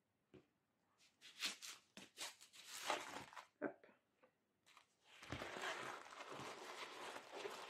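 Paper rustling as a rolled diamond painting canvas is handled and opened: a few short scrapes and crinkles, then a continuous rustle from about five seconds in.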